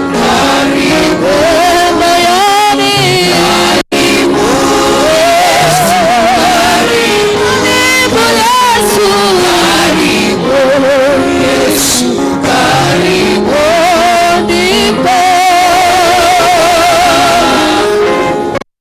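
Gospel music: a man singing with a wide vibrato over sustained backing, cutting out briefly about four seconds in.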